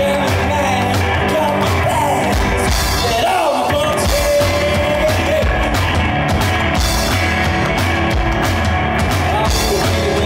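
Live rock music: a male voice singing over a hollow-body electric guitar and drums. The drummer stands on the bass drum and hits the toms and snare with sticks, giving a steady, driving beat.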